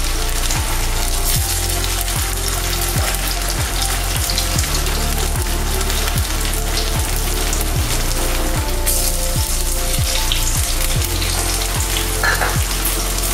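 Green banana kofta balls, dipped in cornflour slurry, sizzling as they deep-fry in oil in a steel kadai, over background music with a steady low beat.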